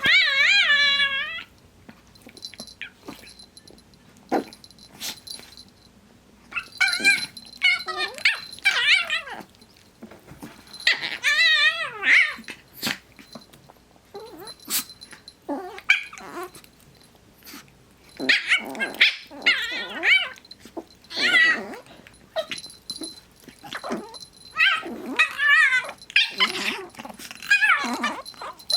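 Chihuahua puppies playing, one giving a high-pitched wavering noise over and over in bursts with short pauses, mixed with yips and growls.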